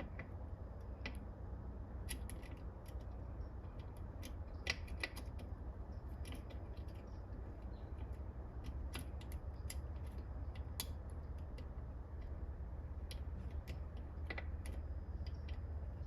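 Scattered light metallic clicks and ticks from a Helicoil thread insert being hand-screwed into a stripped bolt hole in a transmission case with the insert tool, over a low steady hum.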